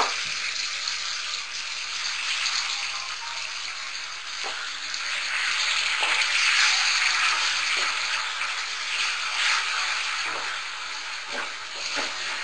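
Pieces of mutton liver sizzling steadily in hot oil and tomato masala in a metal pot, stirred with a spoon, with a few short scrapes of the spoon against the pot.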